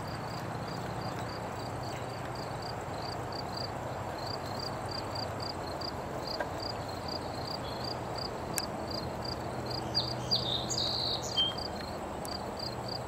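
Outdoor ambience dominated by insects chirping steadily, about two to three chirps a second, over a soft background hiss. A few brief high bird calls come in about ten seconds in.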